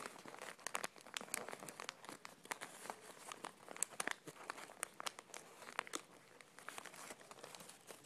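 Folded origami paper crinkling and crackling faintly as hands tuck the flaps of a paper star, with sharp little crackles at irregular moments.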